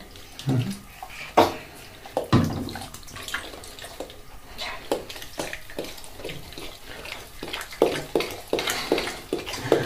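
Bathwater splashing in a tub while a dog laps at the soapy water, a run of quick wet laps, about three a second, in the second half.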